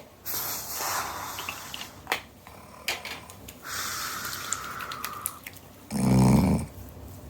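A person asleep and snoring: long airy, hissing breaths and a couple of sharp clicks, then one loud, low snore about six seconds in.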